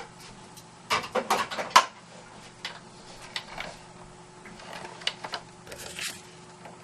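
Quick run of sharp clicks and taps about a second in, then scattered lighter clicks: card and craft tools being handled and set down on a work table.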